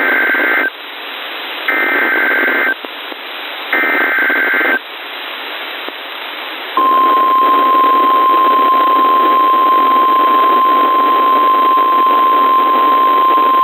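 Weather radio receiver playing an emergency alert: three short bursts of warbling digital data tones, then the steady single-pitch 1050 Hz weather-radio warning alarm tone starting about seven seconds in, all over radio hiss. This is the header-and-alarm sequence that introduces a new severe thunderstorm warning broadcast.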